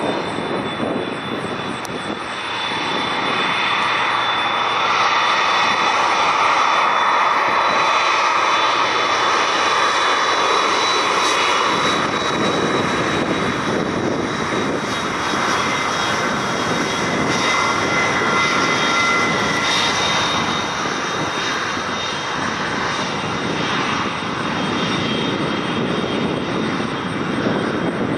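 McDonnell Douglas MD-10-10F freighter's three General Electric CF6-6 turbofan engines running, with a steady high whine over broad jet noise. The sound grows louder about three seconds in and stays loud.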